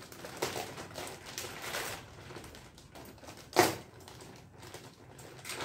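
Plastic packaging wrap crinkling and rustling as it is handled and pulled open, with one sharp knock a little over halfway through.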